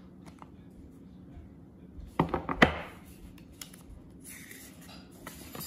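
Handling of a small white cardboard AirPods Pro inner box: a few light clicks, then two sharp knocks a little past two seconds in, then paper rustling and crackling as the documentation envelope is slid out.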